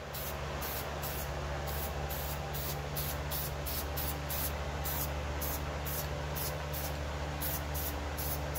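Aerosol spray-paint can hissing as paint is sprayed, the hiss surging about three times a second as the can is worked over the part. A steady low hum runs underneath.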